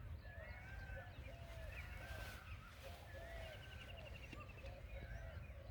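Several songbirds chirping and whistling in short repeated phrases, with a rapid trill about three seconds in, over a low steady rumble.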